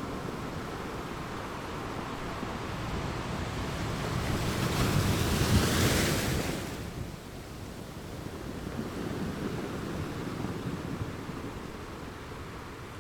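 Ocean waves washing steadily, with one wave swelling up loudly about midway and then falling away.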